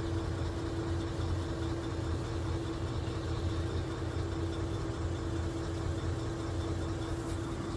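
An engine idling steadily: a constant low drone with one unchanging hum above it.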